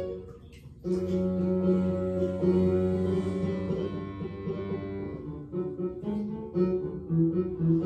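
Background music with sustained, layered tones, dipping briefly about half a second in before resuming.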